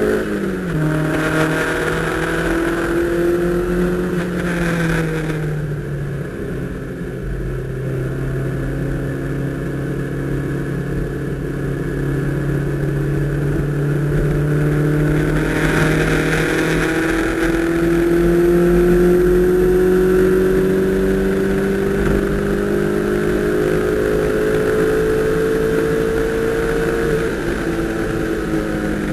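Toyota MR2 engine heard from inside the cabin while lapping a race track. The engine note drops sharply just after the start and again about four seconds in. It then climbs slowly and steadily under load for about twenty seconds, and falls away again near the end.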